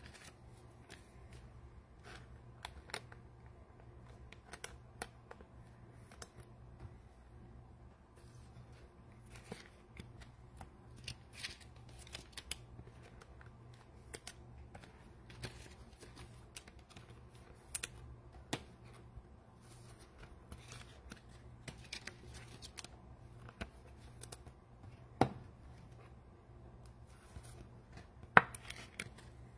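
Faint, scattered clicks and rustles of trading cards and pack wrappers being handled, over a steady low hum, with two sharper clicks near the end.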